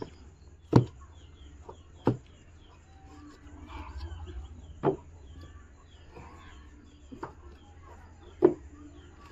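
About five sharp knocks spaced a second or more apart, with birds calling faintly in the background.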